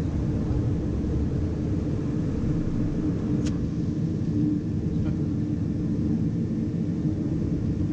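Light aircraft's engine running steadily under the cockpit's rumble as it rolls down the runway slowing on the landing roll-out, with a single sharp click about three and a half seconds in.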